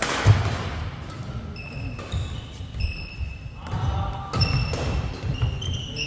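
Badminton doubles rally: court shoes squeaking in short high chirps on the wooden floor, footsteps thudding, and sharp racket strikes on the shuttlecock at the start and again about four and a half seconds in.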